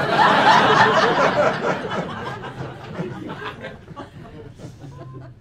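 Audience laughing at a punchline, loudest at first and dying away over the next few seconds.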